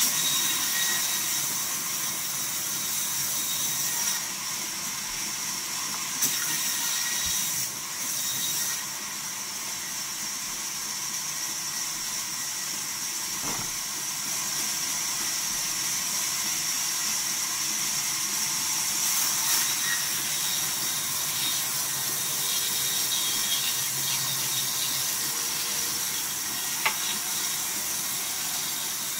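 Large vertical band saw running, its blade cutting lengthwise through a log with a steady high hiss, broken by a few brief clicks.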